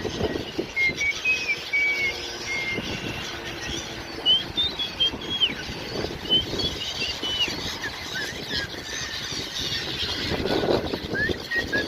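A flock of gulls calling: many short, high cries, some rising and some falling, overlapping one another over a low rumble.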